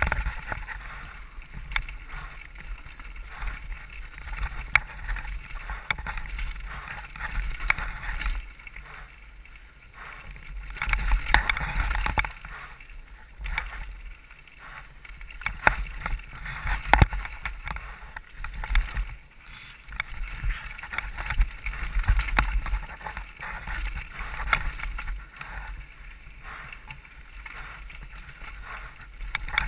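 Mountain bike descending rocky dirt singletrack, heard from a helmet camera: wind rumbling on the microphone, tyres rolling and crunching over dirt and rock, and the bike rattling with many sharp clicks and knocks. The rattle swells and eases every few seconds as the ground gets rougher.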